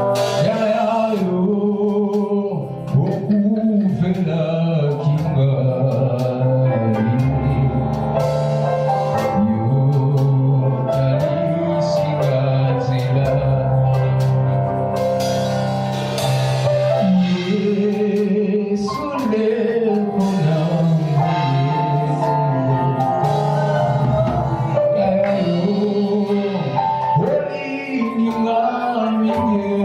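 Live worship band playing a song, with singing, keyboard and drums.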